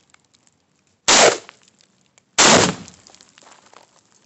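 Two shots from a Riley Defense AK-47 in 7.62x39mm, about a second in and again about a second and a half later. The second sets off a half-pound Tannerite exploding target, a heavier bang with a longer tail.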